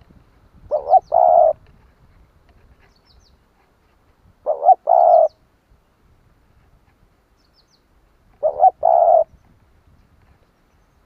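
Spotted dove calling its cooing song three times, about four seconds apart, each phrase two short coos followed by a longer one. Faint high chirps from a small bird sound in between.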